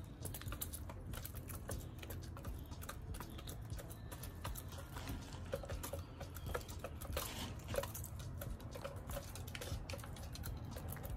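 Hens pecking at a seed block and dried black soldier fly larvae on a treat table: a quick, irregular patter of beak taps.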